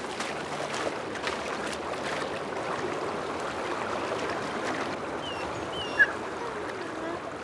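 Shallow river running steadily, with splashing in the first two seconds as a bull elk wades in. A few faint high chirps and one brief sharp sound come about six seconds in.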